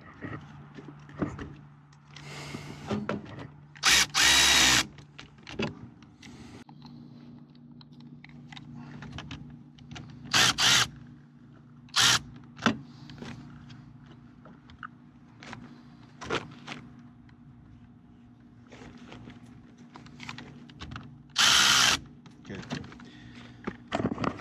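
A cordless power driver run in short bursts of under a second, about four times, while the generator battery's terminal connections are tightened, with small clicks and handling noises between the bursts. A steady low hum runs underneath.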